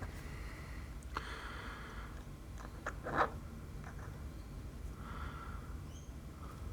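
Small, faint clicks and scrapes of a plastic tool and metal watch parts as a mainspring barrel arbor is pressed into place without seating, with a short, louder puff of air about three seconds in.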